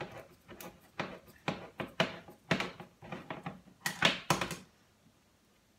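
Hand-turned smooth-edge side-cutting can opener being cranked around a small can, giving an irregular run of sharp clicks, about three a second, that stops about three-quarters of the way through.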